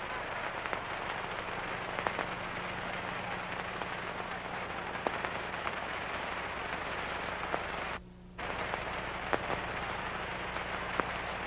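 Hiss and scattered faint crackles of an old optical film soundtrack over a steady low mains hum. The hiss drops out briefly about eight seconds in.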